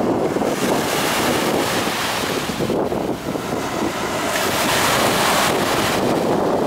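Small waves breaking and washing up a sandy beach: a steady hiss of surf that swells twice, with wind buffeting the microphone.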